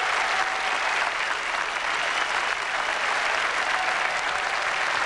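A large studio audience applauding at the end of a live song, a dense, steady clapping.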